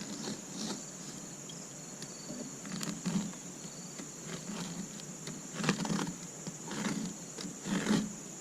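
Short scraping rasps as a blade is dragged along the fiberglass packing tape of a cardboard box, a few of them stronger in the second half. Insects chirr steadily underneath.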